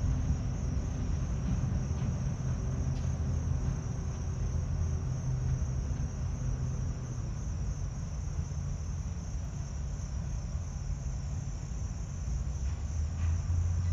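Crickets chirping in a steady, pulsing high trill over the low, steady drone of a GP38 diesel locomotive's EMD 16-645 engine running at low speed. A lower hum swells near the end as a car drives past.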